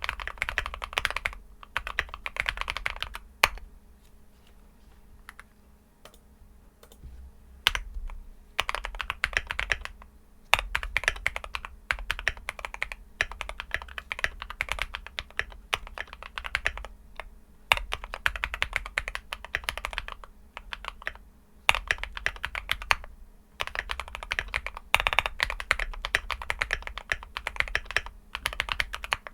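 Typing on an AKKO MOD001 mechanical keyboard fitted with linear switches (JWK Ultimate Black housings with Kailh Red stems) on a PC plate with foam. Keystrokes come in fast runs broken by short pauses, with a few sharper single strokes standing out.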